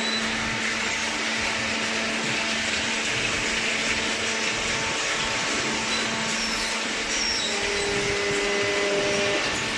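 Steady whirring machine noise with a constant low hum, like an electric motor running continuously.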